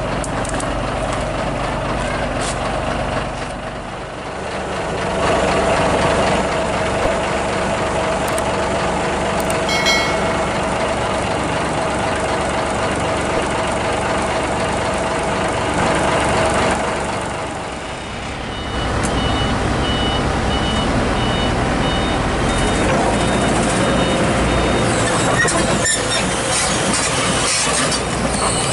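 Heavy-equipment diesel engines running steadily. A reversing alarm beeps repeatedly for several seconds past the middle.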